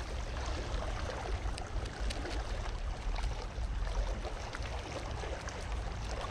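Calm sea water lapping and washing gently against shoreline rocks: a steady soft wash with small scattered ticks and splashes, over a low rumble.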